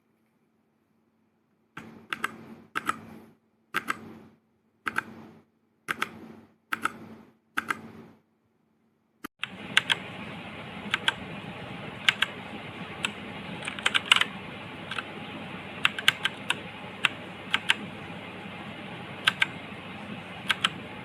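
Keys clacking on a Machenike K500 mechanical keyboard. At first the keystrokes are spaced, about one a second, each fading briefly. From about nine seconds in they come faster and irregular over a steady hiss.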